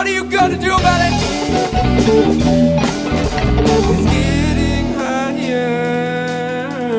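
Live jam-band rock played on electric guitars, bass guitar and drum kit. About five seconds in, the bass and kick drum drop away, leaving held, bending electric guitar notes over cymbals.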